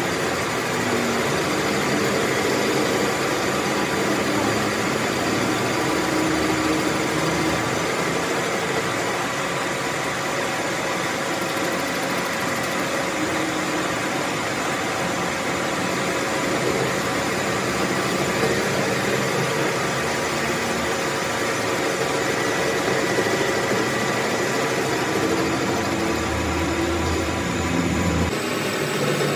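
A machine running steadily: an even hum and noise with no breaks or strikes.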